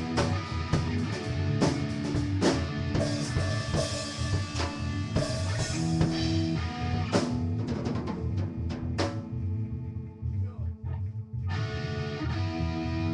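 Electric guitar and drum kit playing rock together, with a steady kick-drum pulse and cymbal crashes. About nine seconds in, the drum hits drop out for a couple of seconds before the guitar chords come back in.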